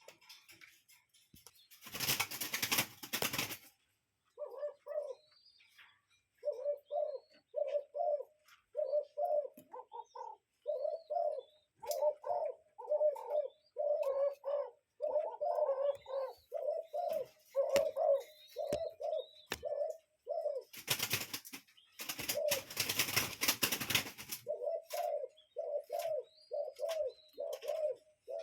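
Common cuckoo calling, a long run of low hooted "cuck-oo" notes repeated two or three times a second. Two loud bursts of rushing noise cut in, one near the start and one about three-quarters of the way through.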